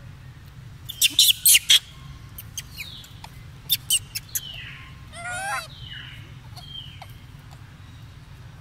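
Animal calls: two quick runs of short, sharp, high chirps, then a single wavering call about five seconds in.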